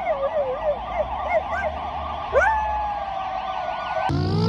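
Emergency vehicle siren sweeping quickly up and down. About two and a half seconds in, a husky joins with one long howl that rises and then holds steady. Both stop abruptly about four seconds in, replaced by a low hum.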